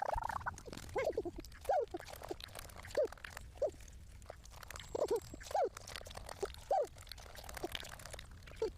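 Chicken clucking: short single clucks at irregular intervals, about one a second, with faint scratchy clicks between them.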